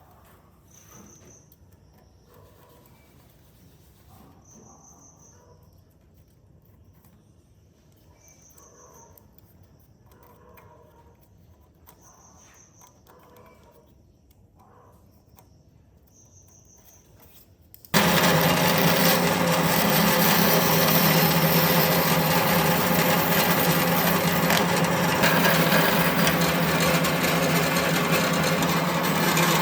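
A faint high chirp repeats about every four seconds over a quiet background. About eighteen seconds in, a power tool starts abruptly and runs loud and steady, grinding or sanding into wood.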